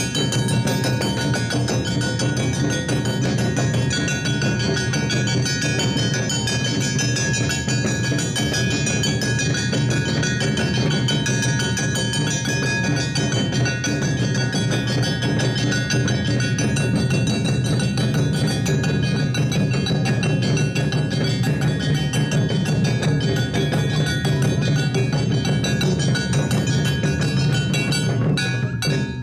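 Awa odori festival band playing: clanging kane hand gongs and drums over a steady melody, with no break. The music cuts off abruptly at the very end.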